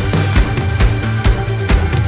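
Electronic background music with a steady bass beat, about two and a half beats a second.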